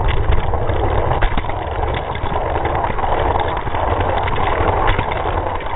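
Steady rumble and rattle of die-cast toy cars rolling along plastic track, cutting off suddenly near the end.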